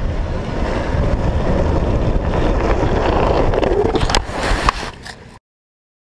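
Loud wind buffeting the microphone of a camera travelling at speed with a downhill skateboard, mixed with the rolling noise of skateboard wheels on asphalt. A few sharp clicks come a little past four seconds in, and the sound cuts off suddenly about five and a half seconds in.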